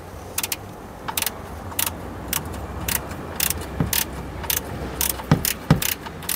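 Socket ratchet clicking about twice a second as it works a BMW sump plug loose from the oil pan, with a few dull knocks near the end.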